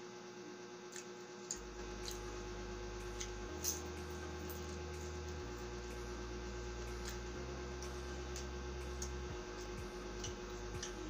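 Close-up eating sounds: chewing with scattered sharp crunches and mouth clicks, the loudest a little under four seconds in, over a steady electrical hum.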